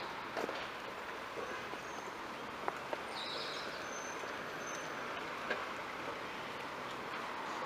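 Steady outdoor roadside ambience: a hiss of distant traffic, a few short high bird chirps, and occasional light knocks.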